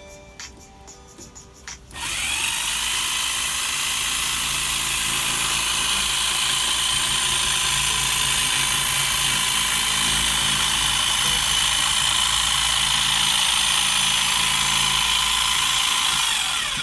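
Electric jigsaw cutting into a pumpkin: the motor starts about two seconds in with a rising whine, runs steadily at full speed for about fourteen seconds, then winds down near the end.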